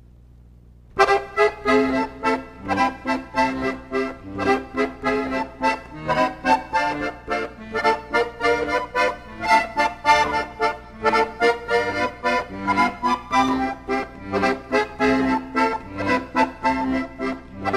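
Instrumental theme music with a regular beat, starting about a second in.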